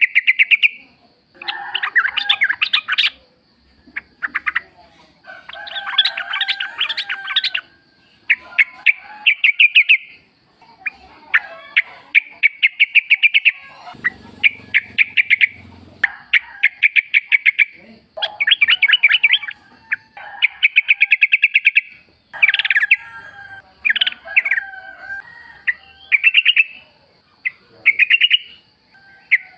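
Yellow-vented bulbuls calling in the wild: repeated bursts of rapid, chattering notes with short pauses between phrases. A faint steady high whine runs underneath.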